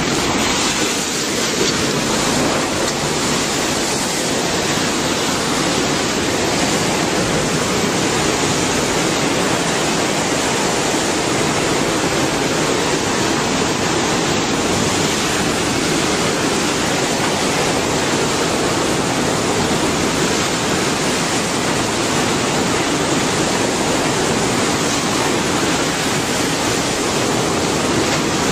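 Tsunami floodwater surging past: a loud, steady rush of churning water.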